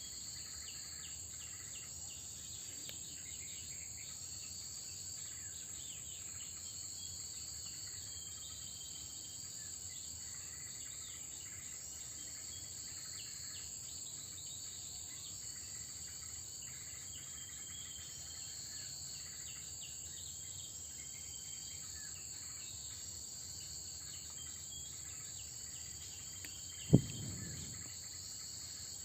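A steady, high-pitched chorus of insects, with a few faint short chirps over it. Near the end comes a single sudden thump, the loudest sound here.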